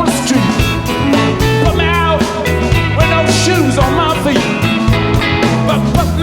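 Rock song with a steady bass line, drums, electric guitar and a singing voice.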